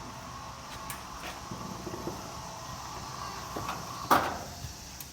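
A few faint clicks and one louder knock or clatter about four seconds in, over a steady low background hiss.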